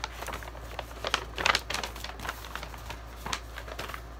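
A brown paper shopping bag rustling and crackling as it is handled and folded, with irregular crackles, the loudest cluster about a second and a half in.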